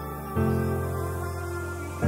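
Soft, slow background music of sustained chords, with a new chord coming in about a third of a second in.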